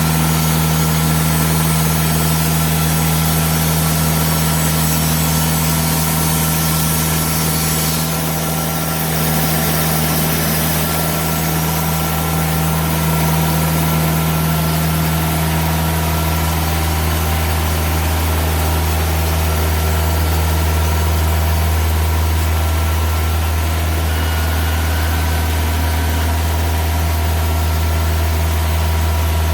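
TimberKing 2000 sawmill's engine running steadily at a constant speed. A high hiss over it is stronger for the first eight seconds or so, then eases.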